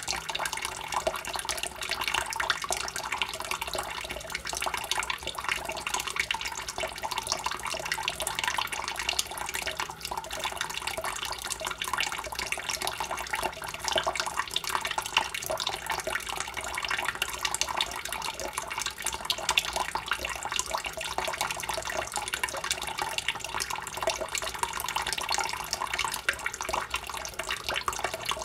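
A thin stream of tap water left running to keep the pipes from freezing, trickling steadily into a water-filled basin with a constant light splashing.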